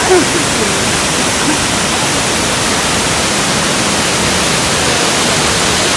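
Waterfall crashing onto rocks: a steady, even rush of water noise.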